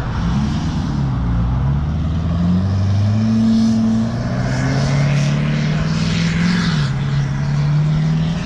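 Lifted Ford Super Duty pickup's 6.7 L Power Stroke diesel V8 pulling away and accelerating, its engine note climbing and then dropping back twice, about four and seven seconds in, as the transmission shifts up.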